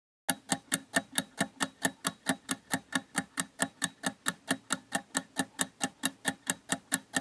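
Clock-ticking countdown timer sound effect: even, sharp ticks at about four to five a second, starting a moment in.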